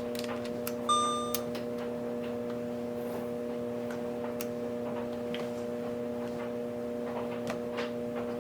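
A single short electronic beep about a second in, typical of a Canon ZR60 MiniDV camcorder being switched on. Light scattered clicks of the camera being handled follow, over a steady background hum.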